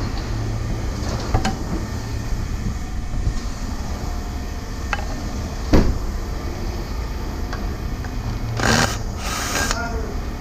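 Steady low mechanical rumble with a few sharp knocks, the loudest about six seconds in, and a short rushing hiss near the end.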